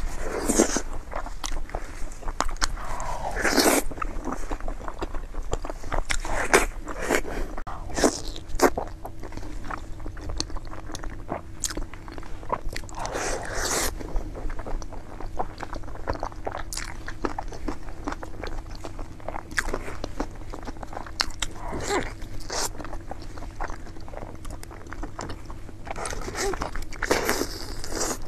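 Close-miked eating: a person biting and chewing food, with crunching, clicking and wet mouth sounds throughout and a few longer sucking or slurping noises.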